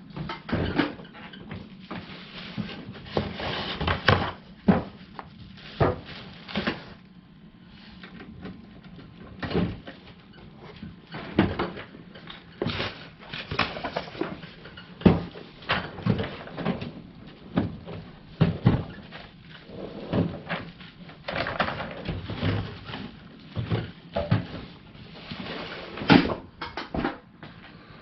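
Irregular knocks, clicks and clunks, dozens of them at uneven spacing, from a steel tool chest and its parts being handled.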